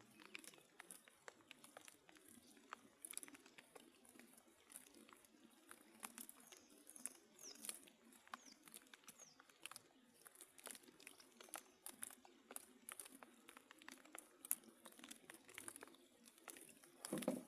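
Near silence: faint scattered ticks and clicks, with a few faint high falling chirps about six to nine seconds in.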